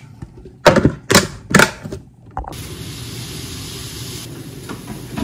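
Three sharp clacks, a second apart, as a lid is pressed onto a stainless steel food container. Then a pot of water at a rolling boil, a steady bubbling hiss.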